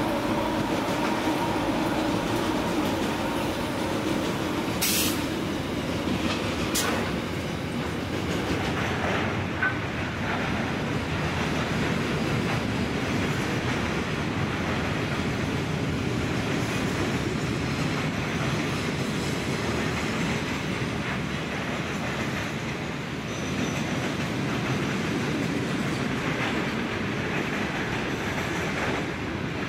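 Freight train passing close by: a Pacific National NR class diesel-electric locomotive's engine hums for the first few seconds, then fades as the steel-laden wagons roll through with a steady rumble and clatter of wheels on rail. Two sharp knocks come about five and seven seconds in.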